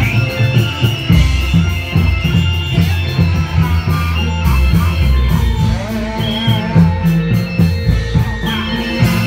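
Music with a strong bass line and a steady beat, with a melody over it.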